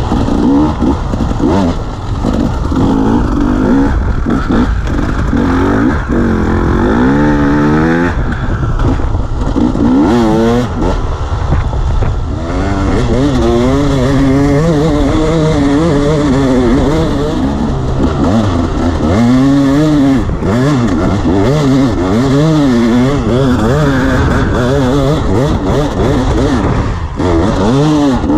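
Dirt bike engine ridden hard over rough pasture, its pitch rising and falling again and again as the throttle is opened and closed.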